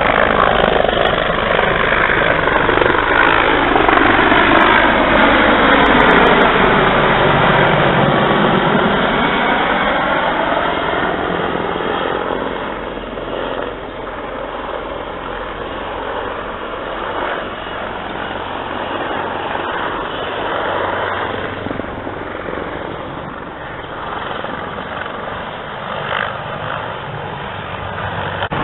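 Sikorsky CH-53E Super Stallion heavy-lift helicopter flying overhead, its big seven-blade main rotor and turbine engines loud in the first ten seconds. As it passes, a whooshing sweep falls in pitch and then rises again. It then settles to a steadier, quieter rotor drone as the helicopter circles away.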